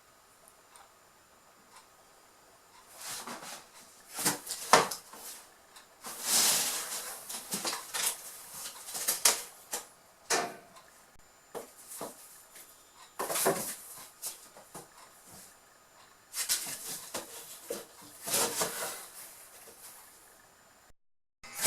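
Kittens scrabbling and bumping on and against a cardboard box: irregular bursts of scratching and rustling with sharp knocks, starting a few seconds in and coming in clusters.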